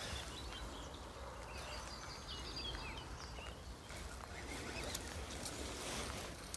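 Quiet riverside background with a few short bird chirps in the first half.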